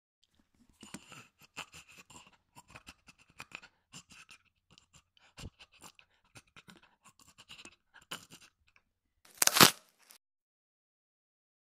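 Twigs and branches crackling, snapping and scraping in a scatter of small irregular clicks as someone pushes through dense brush. Near the end comes one much louder, brief crack-and-rustle burst.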